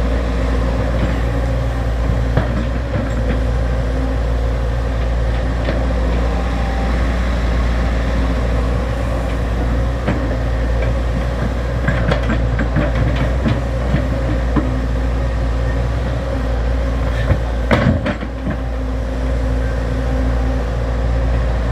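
XCMG XE75G excavator's diesel engine running steadily under work, with a cluster of short clanks past the middle and one sharper knock near the end.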